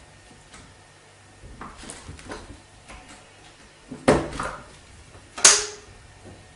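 A few sharp knocks and clattering thuds, the loudest about four seconds in and again about five and a half seconds in, over a low steady hum.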